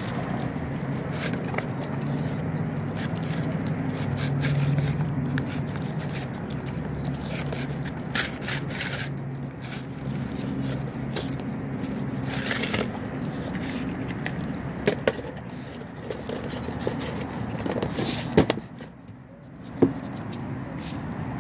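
Dog eating boiled rice from a plastic tub, with wet lapping and chewing as the tub scrapes over the brick tiles. A few sharp knocks come near the end.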